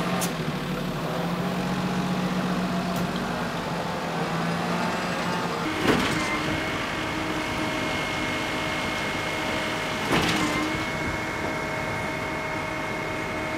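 Heavy diesel engines of ready-mix concrete mixer trucks and a concrete pump truck running steadily. The engine note changes abruptly about six seconds in and again about ten seconds in.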